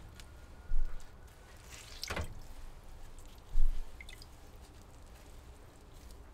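Water dripping and trickling into a basin as a wet linen tea cloth (chakin) is twisted and wrung out, with a splash about two seconds in. Two short low thumps, about a second in and a little past the middle, are the loudest sounds.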